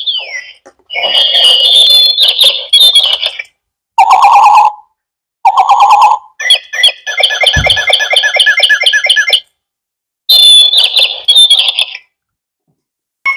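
Battery-powered toy birds chirping and whistling electronically in several bursts, one of them a long, rapid trill of repeated chirps.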